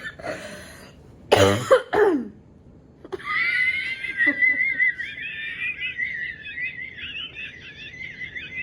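A person laughing helplessly: a loud cough-like burst of laughter, then a long, high-pitched, wavering squeaky wheeze held for several seconds.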